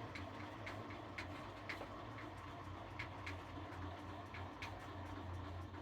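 Ajax universal milling machine's crank being turned by hand, giving a light regular tick about twice a second over a steady low hum.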